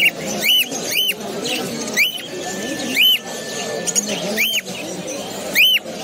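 Cockatiel repeating a short rising-and-falling chirp, about seven times at uneven intervals.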